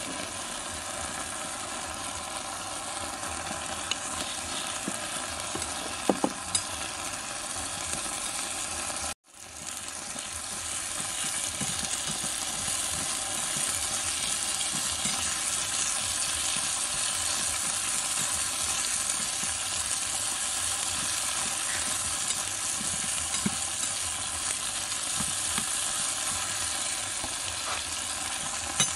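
Eggplant pieces and meatballs in sauce sizzling and frying in a miniature wok, stirred with a small metal spoon, with a couple of sharp taps against the wok about six seconds in. The sound cuts out for a moment about nine seconds in, then the sizzle comes back slightly louder.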